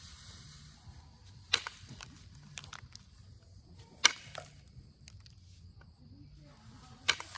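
Onondaga chert spear point being knapped: three sharp clicks of flakes snapping off the tip, a couple of seconds apart, with small ticks and scraping between.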